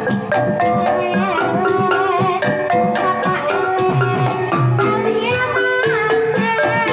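Banyumasan gamelan playing a tayub gending: kendang hand-drum strokes, a small kettle gong and mallet-struck melody notes, with a sinden's wavering sung line over them.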